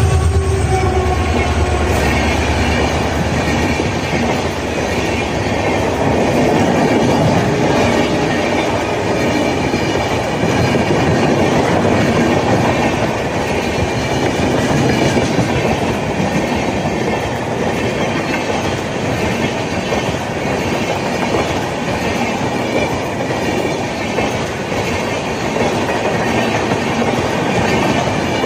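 Express passenger train passing close by at speed: a continuous rumble with wheels clattering over the rail joints as coach after coach goes past. The WDP-4B diesel locomotive's engine drone fades out in the first second or two.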